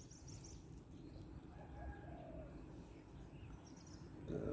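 Faint bird calls, including a short cooing call about halfway through, over quiet open-air background.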